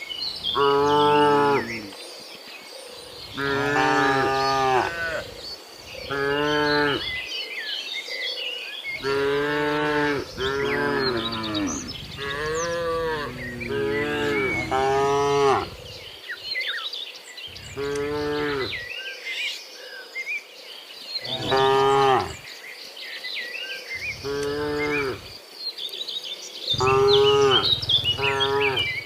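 A herd of cattle mooing: about a dozen long calls of a second or so each, sometimes two cows overlapping.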